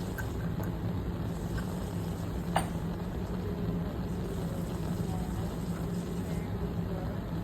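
Steady rushing noise with a low hum, the running background of a chemistry lab during a flame test, with one sharp click about two and a half seconds in.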